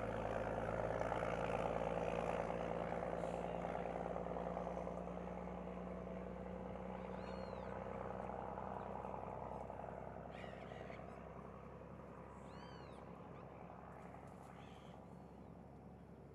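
A steady engine hum, like a motor vehicle, that slowly fades away. A small bird gives short, arched chirps several times in the second half.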